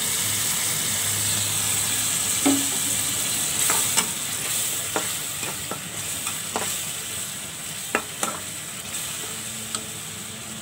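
Onion, chilli and tomato sauce sizzling in a metal wok just after a little water is poured in, the sizzle slowly easing. From about two seconds in, a metal spatula clinks and scrapes against the wok as the sauce is stirred.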